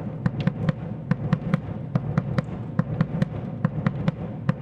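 Surdo bass drum played with a stick in a quadrilha rhythm at a brisk tempo: a quick run of sharp strokes, about five a second, each with a deep thud.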